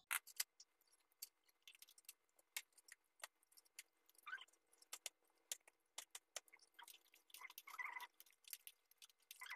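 Thick kare-kare peanut stew simmering in a pan, its bubbles popping as faint, irregular clicks. Late on comes a short scrape of a wooden spatula stirring the pot.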